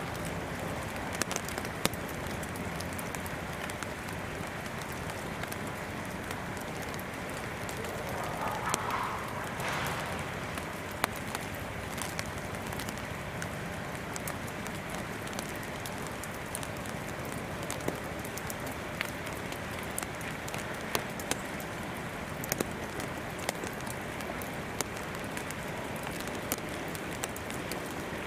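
Quiet outdoor ambience: a steady hiss with many scattered short ticks and light rustles from sparrows hopping and pecking in dry straw.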